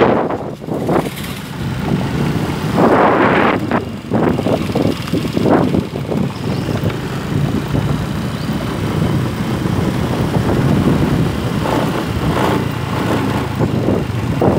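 Motor scooter running steadily along a road, its engine mixed with rushing wind noise on the microphone that swells in gusts a few times.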